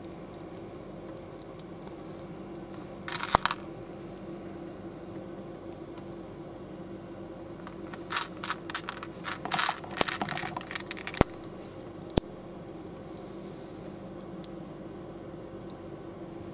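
Small Lego-compatible plastic building bricks clicking and rattling as they are handled and pressed together. There is a dense run of clicks around the middle and a few single sharp snaps later.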